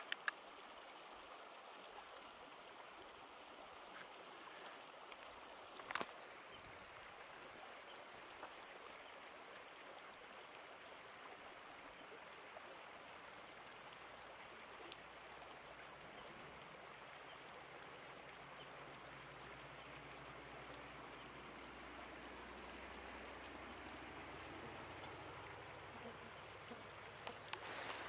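Faint, steady flow of a small mountain creek. There is a single sharp click about six seconds in, and a low rumble builds in the second half.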